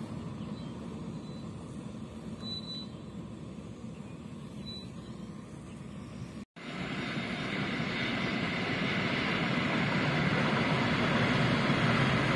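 Electric multiple-unit train running on a concrete rail viaduct, at first a steady, distant noise. After a sudden break about six and a half seconds in, a nearer train's running noise grows steadily louder.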